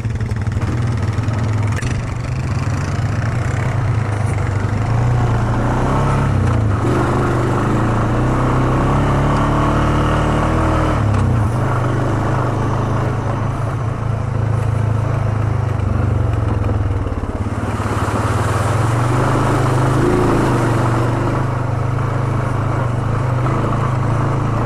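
ATV engine running under way on a bumpy trail, holding a steady drone, its pitch rising and then falling with the throttle about a third of the way through.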